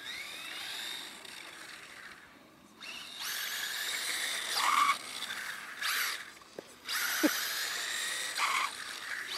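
Vaterra Kemora 1/14-scale electric RC rally car's motor and drivetrain whining as it drives on pavement, rising in pitch in the first second. It cuts out briefly about two seconds in, then whines again in spurts as the throttle is worked.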